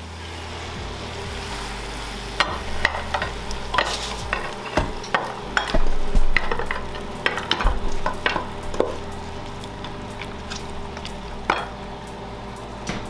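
Goat meat and sauce sizzling in a pan while a utensil stirs it, with irregular sharp clinks and scrapes of the utensil against the pan.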